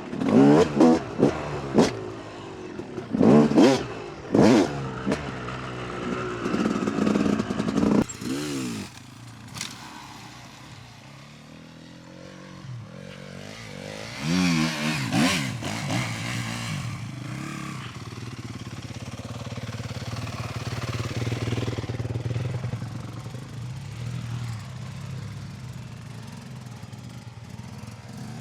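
Dirt bike engine revving in short, repeated bursts over the first eight seconds, then running at lower revs, with two more revs about fourteen to sixteen seconds in.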